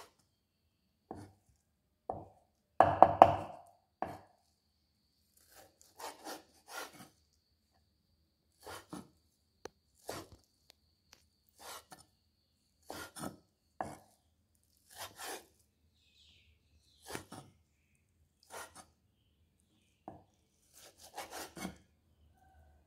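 Steel cleaver chopping raw meat on a round wooden chopping board: single strokes about a second apart, with a loud cluster of chops about three seconds in and a quick run of chops near the end.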